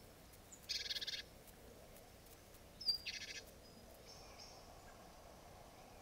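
Great tit giving two short, fast, rattling churr calls about two seconds apart, the second led by a brief thin whistled note.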